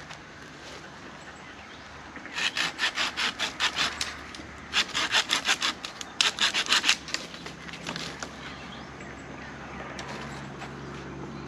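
Hand saw cutting through wood: three runs of quick back-and-forth strokes, several a second, starting about two seconds in and stopping about seven seconds in.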